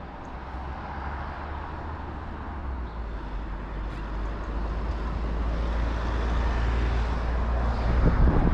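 Outdoor ambience with a low rumble that grows steadily louder and is loudest near the end.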